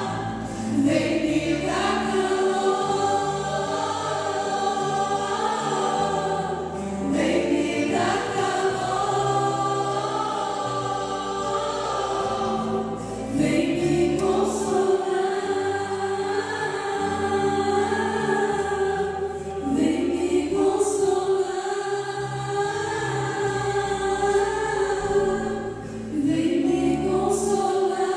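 Gospel worship song: a choir singing over instrumental backing with a sustained bass. New phrases begin about every six seconds, each opening with a rising note.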